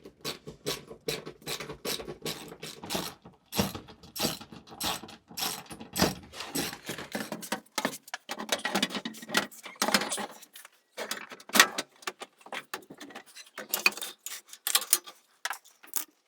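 Irregular clicks, knocks and metallic clanks of tools and loose metal parts as van shelving is unbolted and taken out, several sharp hits a second with short pauses around the middle.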